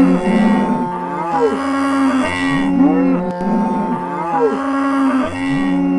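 Cows mooing, several long calls overlapping without a break, their pitch sliding up and down.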